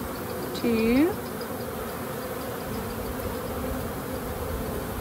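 Honeybees buzzing in a steady hum around an open hive, the flying bees of a colony just shaken off its combs in a shook swarm. About a second in, a brief louder rising buzz stands out.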